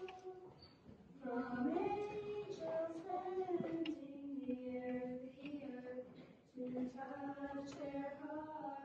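Women's voices singing a slow Christmas song on stage, a melody of long held notes with short pauses between phrases.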